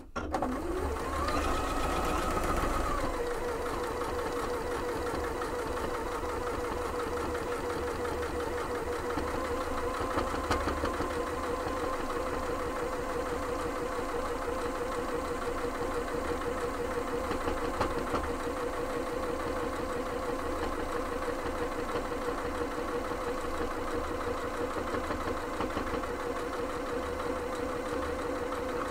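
Electric sewing machine stitching through layered fabric. The motor speeds up quickly at the start, runs faster for about two seconds, then settles to a lower steady speed with the needle's rapid rhythm.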